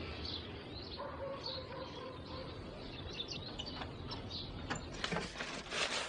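Small birds chirping now and then over an outdoor background hiss, with a faint steady hum in the middle. A few knocks and rustles near the end.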